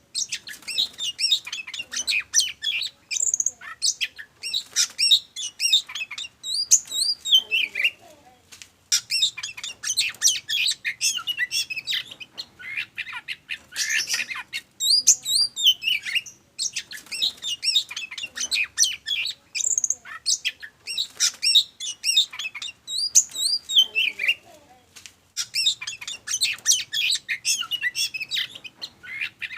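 Oriental magpie-robin (kacer) in full song: rapid, varied runs of whistles, chirps and harsher notes, broken by short pauses every few seconds.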